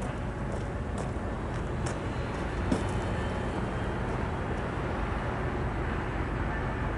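Steady low rumble of an approaching train, heard from a distance, with a few faint clicks and faint thin high tones near the end.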